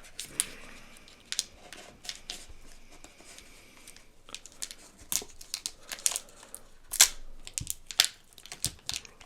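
Snack box packaging being torn open and handled: tearing and crinkling with irregular sharp crackles, two of them louder in the second half.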